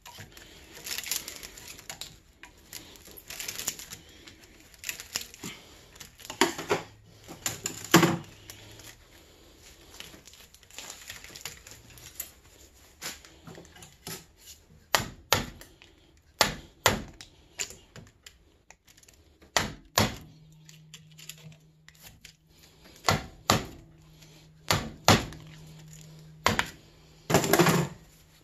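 Hammer driving a steel punch against the laminated iron core of a small transformer held in a bench vise: a series of irregular, sharp metal taps, with scraping and handling noise in the first few seconds.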